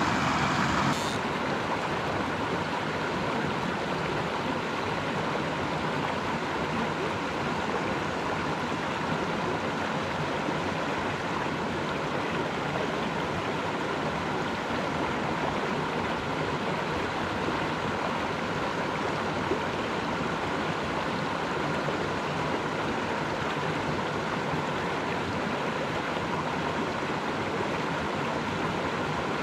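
Small mountain creek running steadily, a constant rush of flowing water, slightly louder for about the first second.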